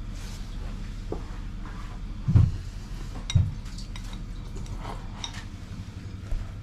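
Wooden chopsticks clicking and scraping against a ceramic bowl as rice and beans are stirred, with small scattered clinks. Two dull thumps about a second apart near the middle are the loudest sounds.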